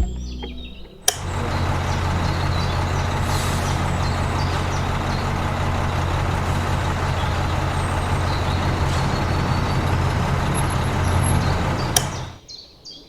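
A machine running steadily with a low hum under a hiss, starting suddenly about a second in and cutting off near the end.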